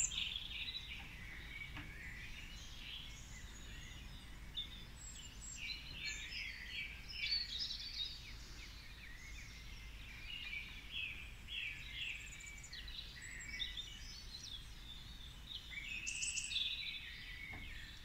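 Faint dawn chorus of songbirds in still air: many overlapping chirps and short song phrases, coming and going.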